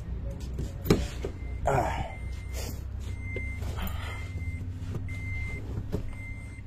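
Isuzu D-Max warning chime beeping about once a second, starting a second and a half in, over a steady low rumble, with a few sharp clicks.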